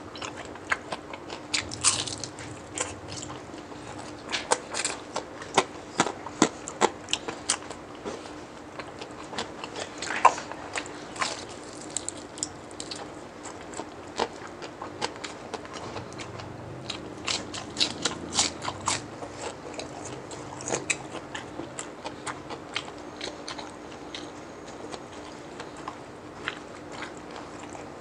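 Close-up crunching and chewing of crispy deep-fried chicharon bulaklak (pork ruffle fat): sharp, crackly crunches coming in quick clusters, over a faint steady hum.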